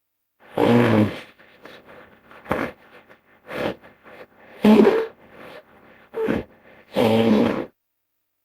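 A series of deep animal grunts and bellows from a made-up hippo-bear creature, blended from hippopotamus and bear recordings. Three longer pitched calls come about a second in, near the middle and near the end, with shorter grunts between them.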